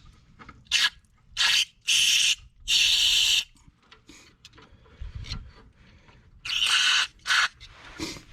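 Aerosol can of brake cleaner sprayed in about eight short hissing bursts, the longest under a second, blasting through a small-engine carburetor's jets and passages to clear out gunk and residue.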